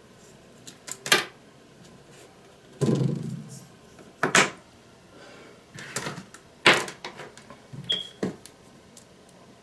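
Sharp clicks and knocks of micro USB cables and a phone being handled and plugged, with a short high beep about eight seconds in.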